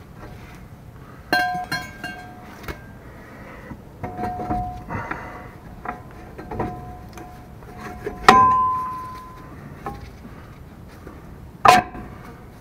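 Rear brake drum on the hub of a 1981 K5 Blazer, knocked and shifted against the freshly fitted brake shoes: several sharp metallic knocks, each leaving a short bell-like ring, with light scraping between. The loudest knock comes about eight seconds in and another near the end.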